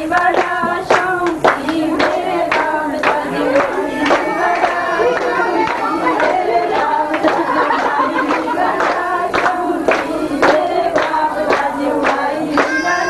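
A group of voices singing together to steady rhythmic hand clapping, about two claps a second.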